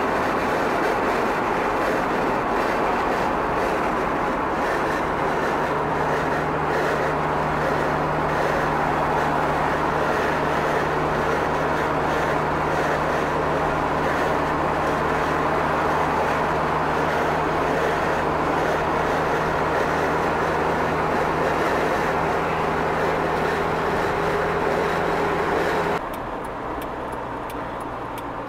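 Steady running noise of a moving road vehicle with a low engine hum. About 26 seconds in it cuts abruptly to a quieter, duller sound.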